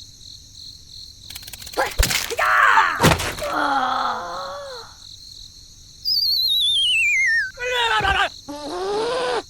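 Comic sound effects: two sharp knocks, then groaning vocal sounds, then a high whistle that wobbles as it falls steeply in pitch, followed by more groaning voices.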